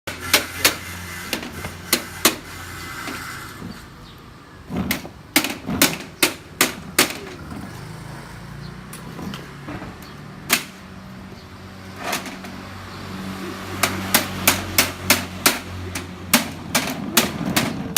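Series of sharp knocks or taps in irregular clusters, coming faster near the end at about two or three a second, over a steady low hum.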